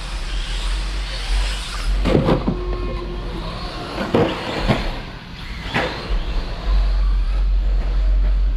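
1/10-scale electric stadium trucks with 13.5-turn brushless motors racing past, their motors whining in short passes about four times, over a steady low hum.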